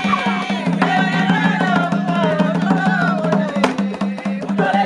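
Women singing with tall wooden hand drums beating a quick, steady rhythm.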